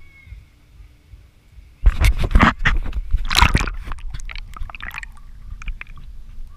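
Action camera plunging into the water about two seconds in: a sudden burst of splashing, then muffled underwater sloshing and gurgling with scattered small clicks as it stays submerged.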